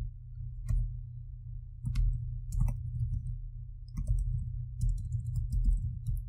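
Computer keyboard keys clicking in irregular, unhurried keystrokes as a line of code is typed, with a quicker run of keystrokes near the end, over a steady low hum.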